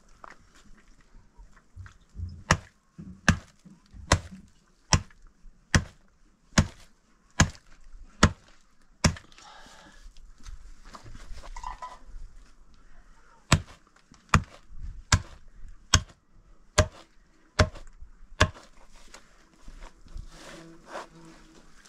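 A hatchet chopping a slaughtered sheep's leg into pieces: a run of about nine sharp blows, a little under one a second, then a pause of a few seconds and another run of about seven blows.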